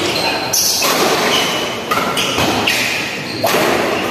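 Badminton rally: rackets striking the shuttlecock in several sharp hits about a second apart, over constant hall noise.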